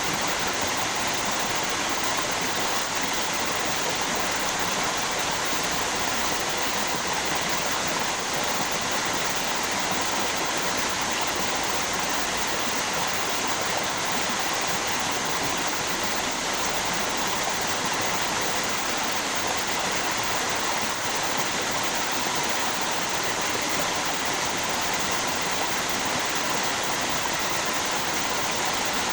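River water flowing and splashing over a waterfall, a steady even rush of water.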